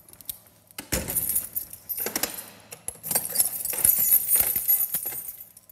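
A bunch of keys jangling and a cell-door lock clicking as a prison cell door is unlocked, with a clunk about a second in and the jingling loudest in the second half.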